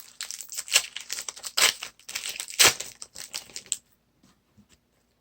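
Trading card pack wrapper being torn open and crinkled by hand, a rapid run of crackles and rustles that stops a little under four seconds in, followed by a few faint ticks.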